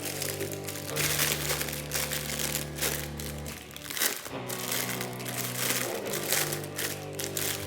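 Plastic packaging crinkling irregularly as it is handled and unwrapped, over background music with sustained low notes.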